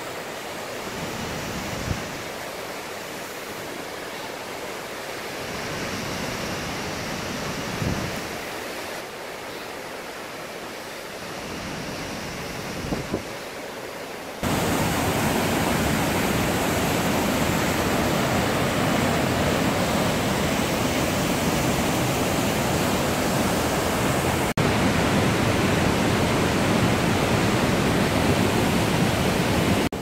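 Waterfall rushing over rocks: an even noise of falling water, fainter for about the first half with a few short knocks, then much louder from about halfway through.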